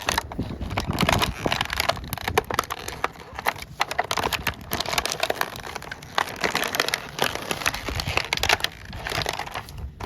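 Packaging crinkling and crackling as it is handled and opened, in dense, irregular rustles and clicks.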